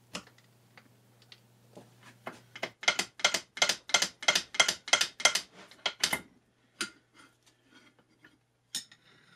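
Metal parts of a lathe turret tailstock being worked by hand during disassembly. About a second in, a few faint clicks start. Then comes an even run of about a dozen sharp metallic clicks, roughly three a second, followed by a few scattered clicks.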